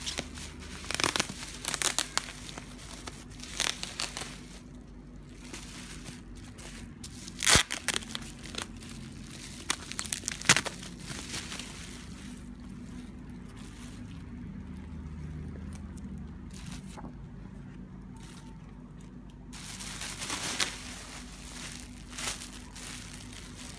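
Bubble-wrap packaging crinkling and crackling as hands pull it off a boxed gimbal. The crackles are irregular, with two sharper cracks near the middle and a quieter stretch toward the end.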